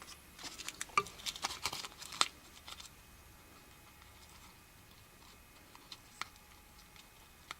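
A quick run of light, irregular clicks and rattles in the first two seconds or so, from the small metal parts of a model locomotive's boiler front being handled to check whether its loose rivet has tightened. Then two faint ticks near the end.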